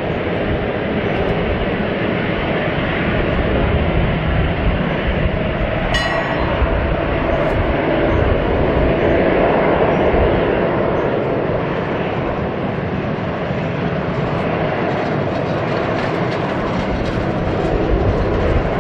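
Airbus A350-900's Rolls-Royce Trent XWB jet engines running at low taxi thrust as the airliner turns onto the runway: a steady engine noise that swells slightly near the middle. A brief sharp click sounds about six seconds in.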